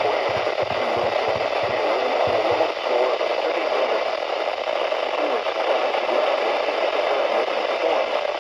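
Steady hiss of radio static, with a low fluttering pulse at about three beats a second that fades out about three seconds in.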